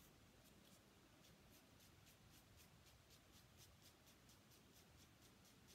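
Staedtler Mars Lumograph graphite pencil scratching on paper in short, quick flicked strokes, about four to five a second, building up strands of hair. Faint.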